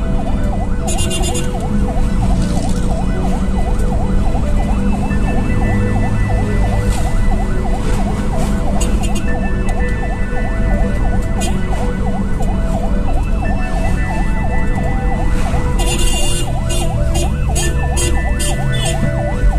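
Ambulance siren on a fast yelp, its pitch sweeping up and down about four times a second, heard from inside the ambulance's cab over steady engine and road noise. A run of sharp clicks comes near the end.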